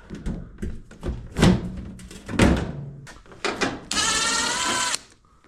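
The sheet-metal top panel of a Whirlpool Duet being pushed and pulled off: a series of knocks and clunks, then about a second of squealing metal-on-metal scraping near the end.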